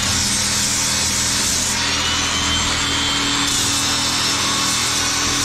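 Cordless angle grinder running steadily while sanding rotten wooden floor joists.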